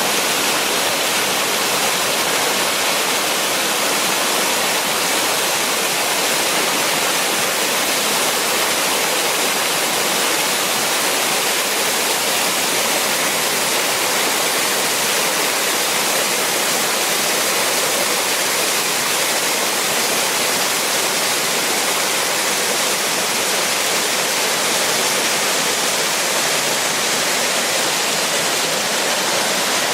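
Waterfall: falling water running in a steady, even rush that is strongest in the high hiss.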